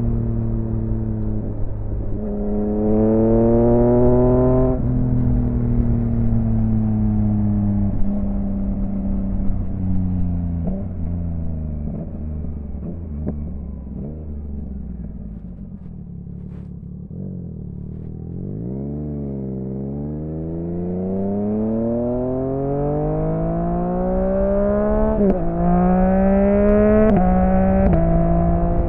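Yamaha XSR900's inline-three engine through an M4 aftermarket exhaust, revving up hard about two seconds in, then winding down slowly with scattered pops as it slows to low revs. From about two-thirds of the way through it revs up again, its pitch dropping sharply twice near the end at gear changes.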